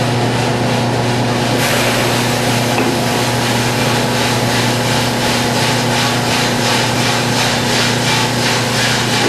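Freshly roasted coffee beans pour out of a drum roaster into its cooling tray, starting about one and a half seconds in as a loud rushing hiss. It sounds over the steady hum of the roaster's motor and blower. Dropping the beans marks the end of the roast.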